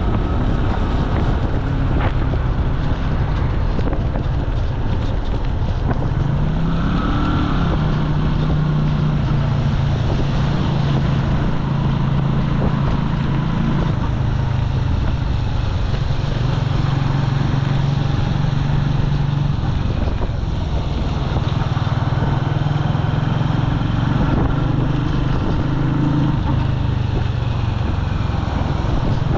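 Jialing 150 cc motorcycle engine running under way, rising in pitch about seven seconds in as the bike speeds up, then holding fairly steady with small changes in engine speed.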